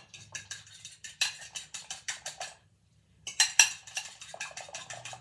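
Fork beating eggs in a glass bowl: rapid clinking strokes of metal against glass, in two runs with a short pause about two and a half seconds in.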